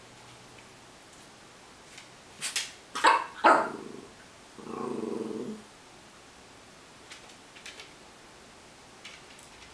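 Norfolk terrier giving a quick run of three or four sharp barks about two and a half seconds in, then a growl of about a second, directed at the kibble in her bowl.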